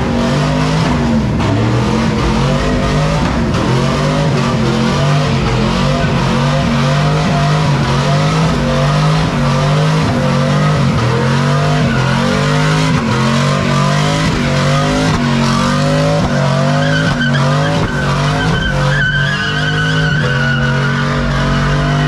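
A car doing a long burnout: the engine is held steady at high revs while the tires spin and squeal. A higher, sharper squeal joins in about seventeen seconds in.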